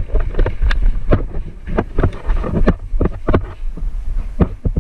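Wind and handling rumble on the microphone, with a string of irregular sharp clicks and knocks, several a second.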